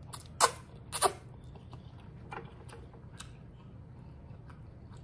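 Close-miked eating sounds: two short, loud slurps as noodle strands are sucked in between the lips, about half a second and a second in, then faint wet clicks of closed-mouth chewing.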